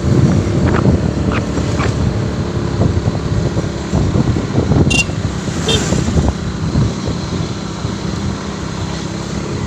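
Motorcycle engine running at low speed with irregular knocks and rattles as the bike rides over a rough, muddy road, then settling to a steadier run. Two brief high chirps come about five seconds in.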